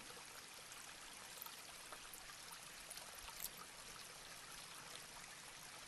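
Near silence: faint steady hiss of room tone, with a few faint small ticks.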